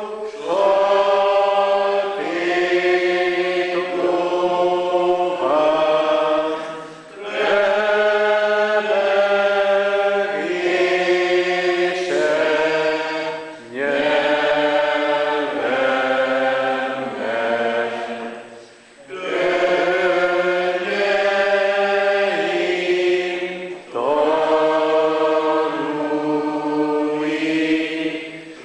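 A church congregation singing a slow hymn together in long held notes, line by line, with brief pauses between the lines every five or six seconds.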